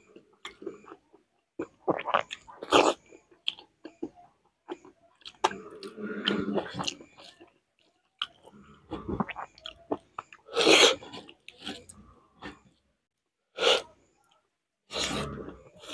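Close-up mouth sounds of a person eating rice and vegetables by hand: wet chewing and lip smacks with scattered clicks. There are a few short, loud breathy bursts, the loudest about eleven seconds in and two more near the end.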